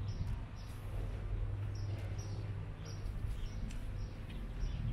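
A small bird chirping, about seven short high chirps spaced unevenly, over a steady low rumble.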